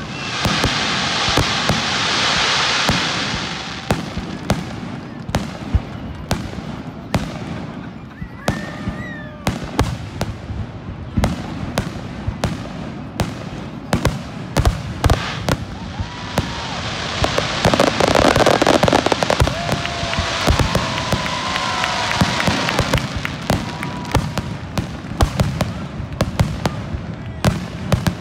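Fireworks display: aerial shells bursting in rapid, irregular bangs. There are long stretches of dense crackling near the start and again in the middle.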